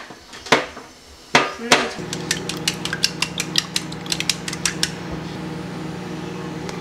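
Wooden chopsticks beating eggs in a ceramic bowl, a quick run of clicks against the bowl, about six a second, starting about two seconds in. A few louder knocks come before it, and a steady low hum runs under the beating.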